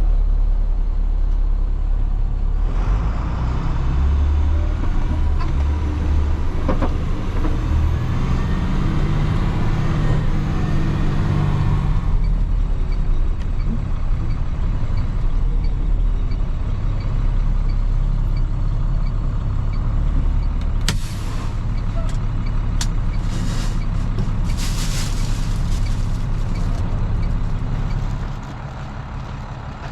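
A vehicle engine running steadily, its pitch shifting during the first part. Sharp clicks and several short bursts of hissing come a little past the middle, and the sound drops in level near the end.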